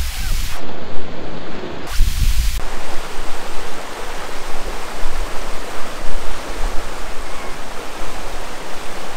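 Mountain creek water rushing over boulders and stones in a steady, loud rush. Two brief low rumbles come in the first few seconds.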